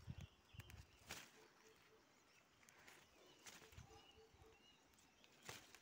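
Near silence: quiet outdoor ambience with a few faint clicks and rustles of leaves as a hand picks at a plant's shoots, and a faint pulsing call repeating about four times a second in short runs, with a few faint chirps.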